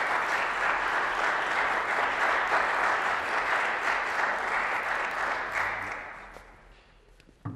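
Audience applauding, a dense steady clapping that dies away about six seconds in. A single low thump near the end.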